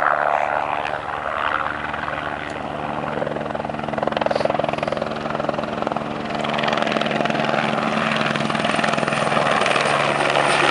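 Sheriff's helicopter flying close by: a steady beat of rotor blades with a pitched engine drone, getting louder about two-thirds of the way through as it comes nearer.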